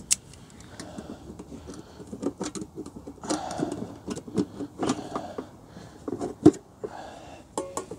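A square metal tin's lid being pried and worked open with a blade: scattered metallic scrapes, clicks and handling rattles, with one sharp knock about six and a half seconds in.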